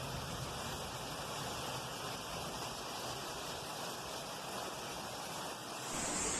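Floodwater rushing steadily. A few tenths of a second before the end, the sound switches to a brighter hiss.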